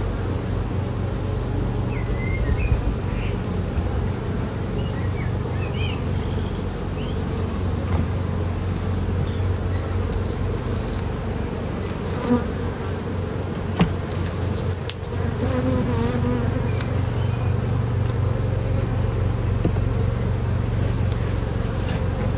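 Honeybees buzzing in a steady, dense hum around an open hive. Two light knocks come about twelve and fourteen seconds in.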